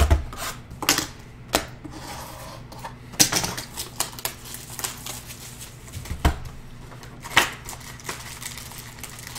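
Cardboard retail boxes of Panini Prizm basketball cards being handled on a table. Irregular sharp knocks and taps as the boxes are moved and set down, with light rustling as one is worked open near the end.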